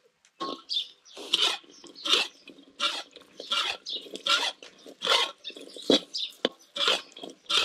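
Metal spatula scraping and stirring sliced shallots and garlic in a dry wok, in regular strokes a little faster than one a second.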